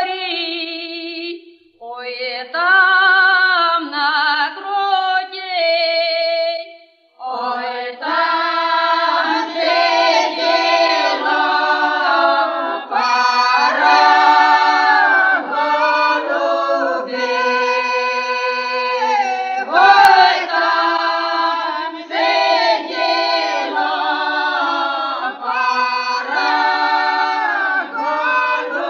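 Background music: a cappella singing with vibrato, sparser at first, then several voices singing together in harmony from about seven seconds in.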